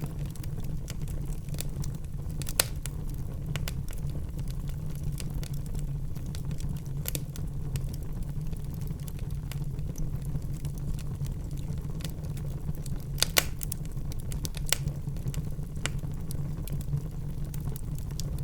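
Wood fire crackling in a fireplace: a steady low rumble with scattered sharp pops and snaps of burning wood, two of them louder, about 2.5 seconds in and again about 13 seconds in.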